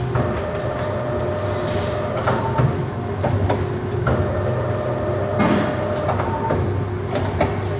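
Twin drop cookie depositor running: a steady motor hum with a whine, and irregular clicks and clanks from its mechanism and conveyor as it deposits swirled dough onto a tray.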